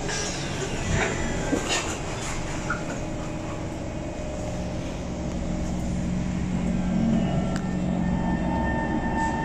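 SMRT C151 metro train pulling away from a station, heard from inside the car. A couple of knocks come near the start as the doors shut. A steady low motor tone comes in about four and a half seconds in, and the running noise slowly grows as the train gathers speed.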